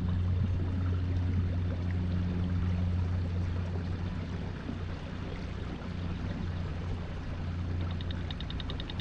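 Boat's outboard motor running at trolling speed, a steady low hum with water washing past the hull; it eases off slightly about halfway. A rapid, even ticking starts near the end.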